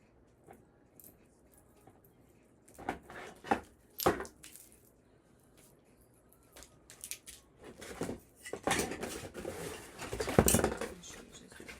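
Hard plastic clicks and clattering as a hair dryer and its attachments are handled: three sharp clicks about three to four seconds in, then a longer run of rattling and knocks near the end.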